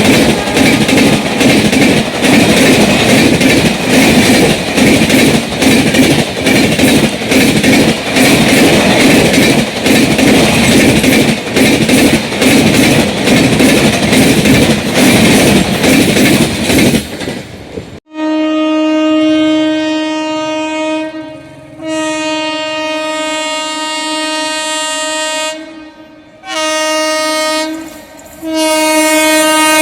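Indian Railways passenger coaches running at speed, their wheels clicking rapidly and steadily over the rail joints. The sound then cuts abruptly to a locomotive horn, which sounds four steady blasts: two long ones, a short one, and a fourth that is still going at the end.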